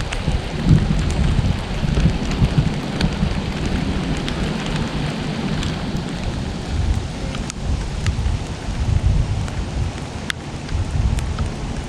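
Steady rain falling, with individual drops ticking sharply close by and a low, uneven rumble underneath.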